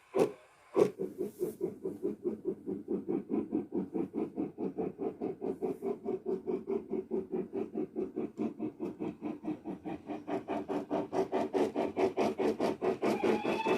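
Sound decoder in a model BR Standard 9F steam locomotive playing real 9F exhaust recordings through its small speaker: a deep, even chuff at about five beats a second, after a few single beats in the first second. A steady high tone comes in near the end.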